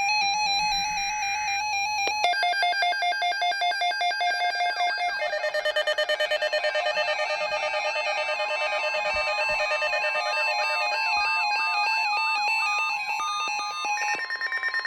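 Several NOAA weather radio receivers going off together for a tornado watch alert, each beeping its own alarm pattern at a different pitch, with a warbling alarm joining in partway and a steady tone coming in about ten seconds in.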